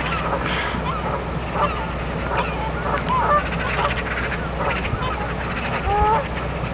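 Birds giving short, repeated honking calls over a steady low hum.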